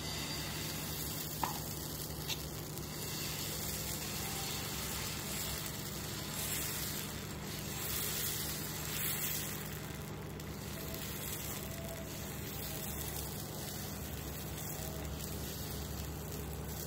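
Dosa batter sizzling steadily on a hot non-stick tawa as it is poured and spread in circles with a ladle, with two brief clicks about one and two seconds in.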